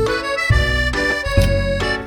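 Background music: a light, bouncy tune led by an accordion-like reed sound over a bass line that steps about twice a second.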